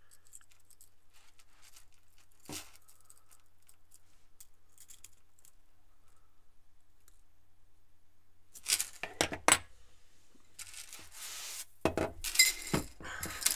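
Stainless steel chainmail rings clinking and jangling as a maille strip is handled. Faint scattered ticks at first, a short cluster of clinks about nine seconds in, then denser jangling near the end.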